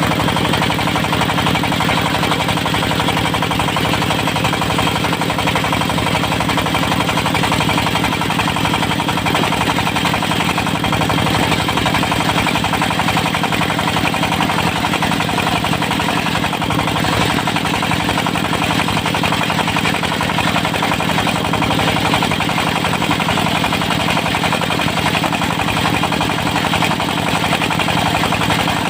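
Diesel-driven portable circular sawmill (serkel) running steadily, the engine's even beat under the saw's steady tone, during the slicing of a teak log into boards.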